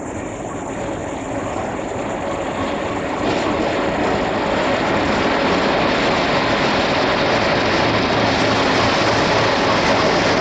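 Bangladesh Railway diesel-electric locomotive running along the platform toward the camera, its engine drone steadily growing louder as it approaches. A steady whine joins about three seconds in.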